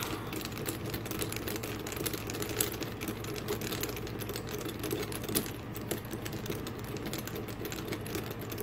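Precision screwdriver driving a small screw into the plastic case of a Garmin nuvi 350 GPS: a fast, irregular run of small clicks and scrapes as the tip turns in the screw head.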